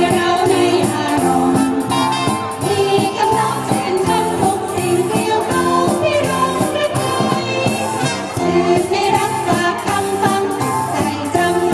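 A women's vocal group singing into microphones over a live band, with a steady drum beat under the voices.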